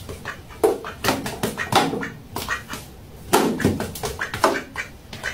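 Duck quacking, a run of short, sharp quacks repeated every half second or so.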